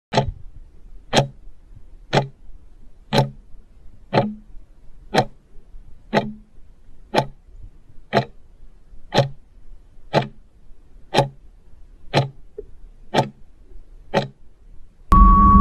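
Clock-style countdown ticking, one tick a second, about fifteen in all. Near the end a loud, steady sound effect with a held beep tone cuts in, typical of a quiz timer running out.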